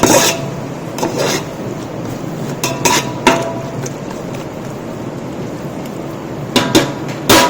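Metal ladle clanking and scraping against a large cooking pot as the biryani masala is stirred, in irregular strikes, several ringing briefly, over a steady hiss.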